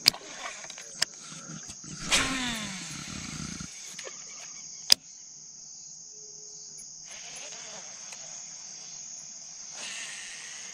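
Baitcasting reel cast: the spool whirs with a pitch that falls as it slows, about two seconds in, followed by a sharp click a little later. Then a quieter reel retrieve, with insects buzzing steadily and high-pitched in the background.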